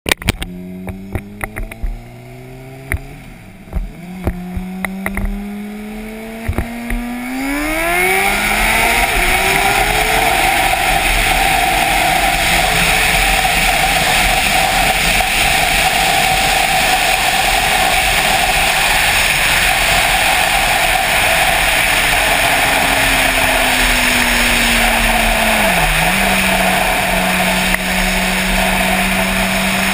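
Honda CBR600RR inline-four sport bike engine accelerating up through the gears, its pitch climbing and dropping back at each shift, with scattered knocks in the first few seconds. Then it runs at a steady speed under loud wind rush across the camera, with a brief dip in engine pitch near the end.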